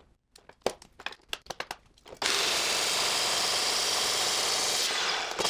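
A few light clicks of a tape measure and stock being handled. About two seconds in, a DeWalt chop saw cuts through aluminum stock with a loud, steady noise. Near the end the saw begins to spin down, its pitch falling.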